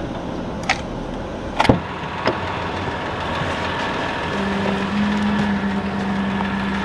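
Sharp clicks and a knock of a pickup truck's door being opened and handled, then the steady sound of the truck idling. A low steady hum joins about four and a half seconds in.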